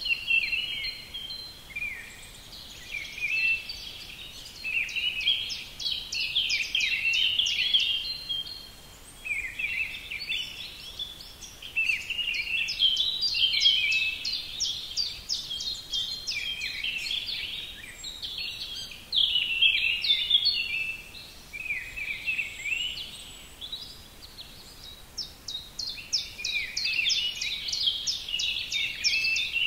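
Birdsong: high, rapid chirping and trilling phrases several seconds long, separated by brief pauses.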